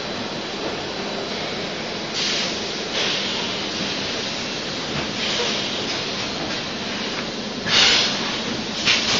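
Extrusion blow molding machine and its conveyors running with a steady mechanical noise, broken by short bursts of compressed-air hiss every two to three seconds, the loudest about eight seconds in.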